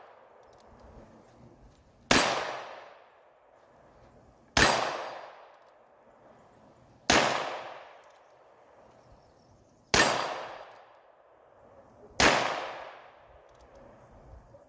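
Five shots from Heritage Rough Rider .22 LR single-action revolvers, fired one at a time about two to three seconds apart, each sharp crack trailing off over about a second.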